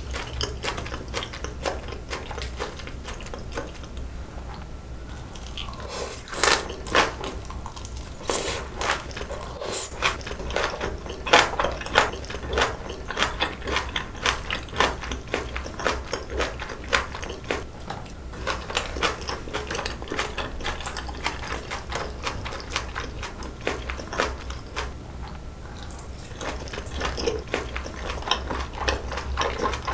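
Close-miked chewing of a mouthful of boiled pork belly and green onion kimchi: many short clicking mouth sounds, with louder bites about six to nine seconds in and again around eleven to thirteen seconds.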